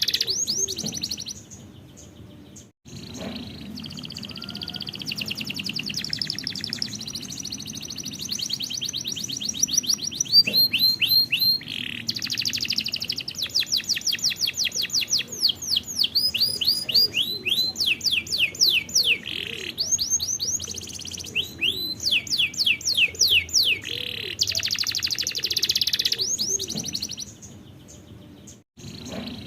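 Domestic canary singing: fast rolling trills, then a long run of repeated sweeping notes at several a second, then a fast roll again. The song drops away briefly near the start and again near the end.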